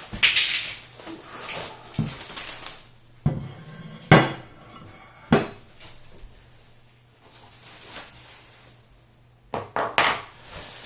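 Metal plates and parts clanking and knocking as they are handled and set down: single sharp knocks every second or so, a quieter stretch in the middle, then a quick cluster of knocks near the end.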